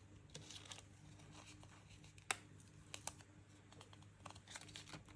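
Faint rustling and crinkling of a paper sticker sheet as a sticker is peeled off its backing, with a few sharp light clicks, the loudest about two seconds in and two close together about three seconds in.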